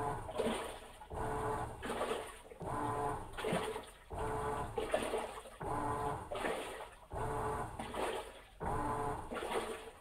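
Insignia washing machine agitating: the motor hums and water sloshes in even strokes, about one a second, falling back between each.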